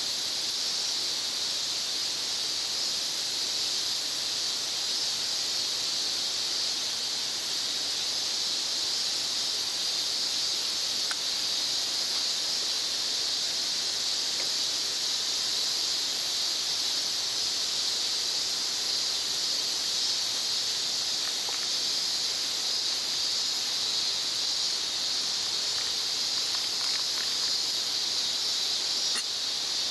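Steady, unbroken chorus of insects shrilling in two high-pitched bands, with a few faint clicks.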